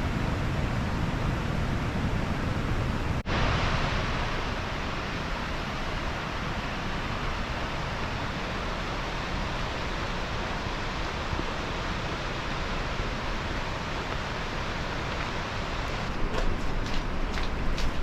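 Steady rush of water from the creek and falls, an even noise with no pitch to it. A brief break about three seconds in, then it continues a little brighter, with a few short clicks near the end.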